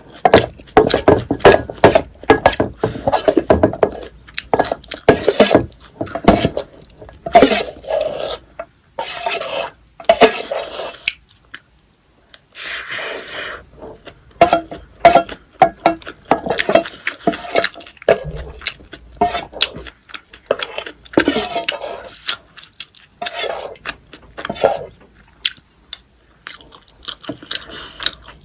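Metal spoon clinking and scraping against a bowl of bibimbap in irregular strokes, with a longer scrape about halfway through.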